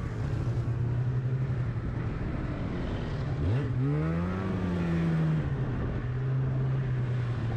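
Snowmobile engine running steadily. About three and a half seconds in it revs up, its pitch rising, then settles back down a second or two later.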